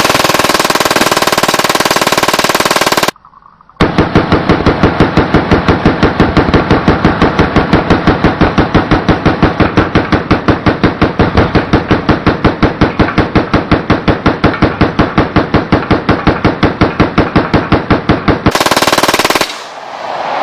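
Fully automatic Glock 17 9mm pistol firing incendiary rounds at a steel target in long bursts. A solid burst lasts about three seconds, stops briefly, then a long run of rapid, evenly pulsing automatic fire goes on for about fifteen seconds and cuts off suddenly shortly before the end.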